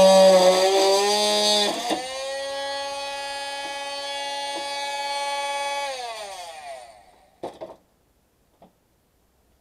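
Handheld electric power tool, used to cut the pipes of an air-conditioner unit, running with a steady high whine. It is louder for the first couple of seconds, then runs on evenly. About six seconds in it is switched off and spins down, its pitch falling. A single sharp knock follows.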